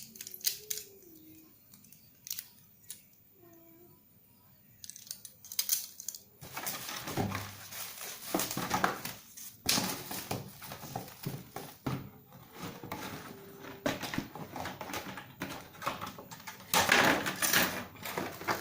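Plastic packaging crinkling and rustling while a hair clipper's box is unpacked, with small clicks from parts being handled. Quiet at first; the crinkling starts about six seconds in and carries on.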